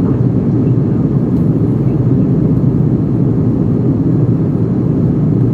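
Steady airliner cabin noise in flight: the even low rush of the jet engines and airflow heard from a window seat over the wing.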